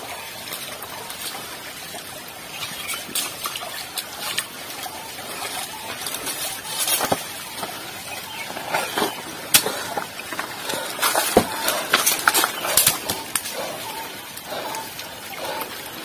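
Footsteps crunching over dry leaves and loose stones on a rocky forest path, with irregular sharp clicks and crackles that grow busier about halfway through.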